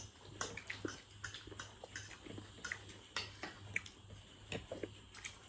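A person chewing food close to the microphone: faint, irregular wet mouth clicks, over a low steady hum.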